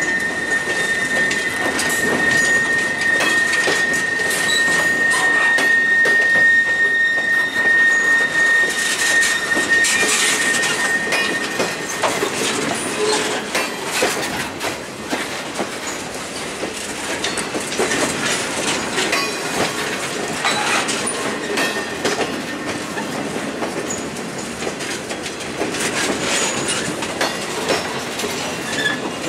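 A freight train of empty flatcars rolling past, its wheels clattering and clanking over the rail joints. A steady high squeal from the wheels stops about twelve seconds in.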